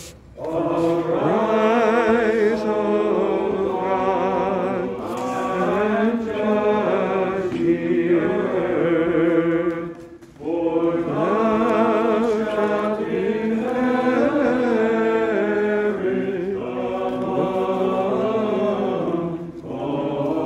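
Orthodox church choir chanting a slow sung refrain between psalm verses, in two long phrases with a brief pause about ten seconds in.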